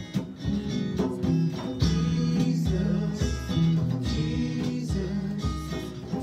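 Two guitars playing a slow country-style tune live: a strummed acoustic-electric guitar with steady strokes over sustained low bass notes.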